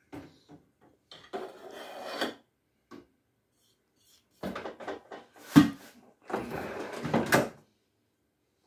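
Clattering and scraping as a Philips air fryer's basket and lid are handled and the basket is slid back into the machine. A sharp knock about halfway through is the loudest sound.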